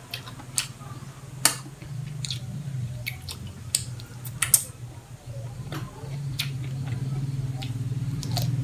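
Close-up eating sounds: wet chewing, lip smacks and finger sucking, with sharp crisp clicks, and a crunchy bite into a raw cucumber spear near the end. A steady low hum runs underneath and grows louder toward the end.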